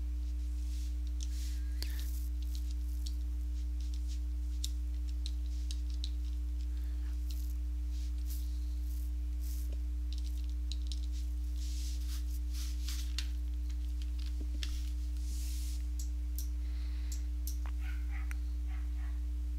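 A steady low electrical hum with a couple of fainter steady tones above it, and faint scattered ticks.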